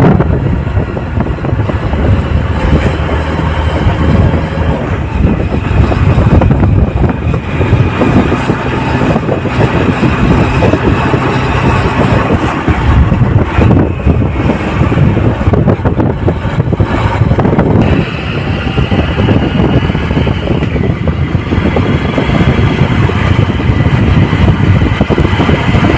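Motorcycle engine running while riding, heavily mixed with wind noise on the microphone.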